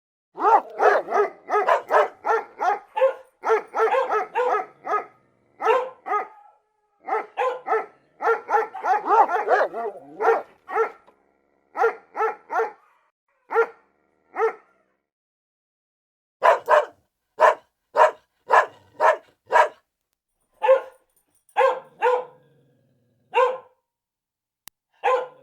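Dog barking over and over: a fast run of barks for about ten seconds, then after a short pause, single barks about one a second.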